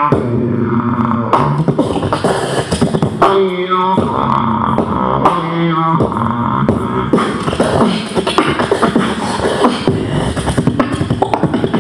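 Solo beatboxing into a handheld microphone cupped in both hands: rapid drum-like kick, snare and click sounds mixed with pitched vocal lines that bend up and down in pitch. From about seven seconds in the rhythm becomes denser and busier.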